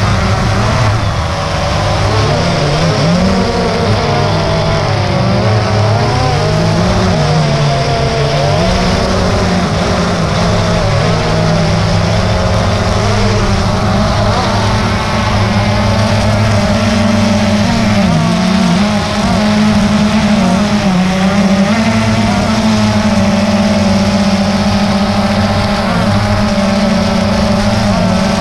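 DJI Phantom 2 quadcopter's brushless motors and propellers whirring loudly, heard close up from the camera mounted on the drone. The pitch of the whir wavers up and down as the motors change speed to steer the drone.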